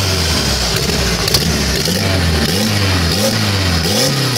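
First-generation ('quadrado') VW Voyage's AP engine running, then blipped three times in quick succession in the second half, each rev rising and falling in pitch.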